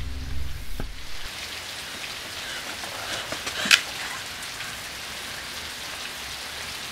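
Steady heavy rain falling, with one brief sharp knock a little past halfway.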